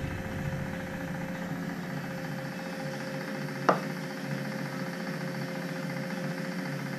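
Bench milling machine running with a 12 mm carbide end mill in the spindle: a steady motor hum with a faint regular pulsing. A single sharp click comes a little past halfway.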